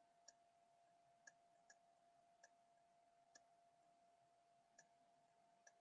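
Near silence: faint room tone with a thin steady whine and seven faint, irregularly spaced clicks.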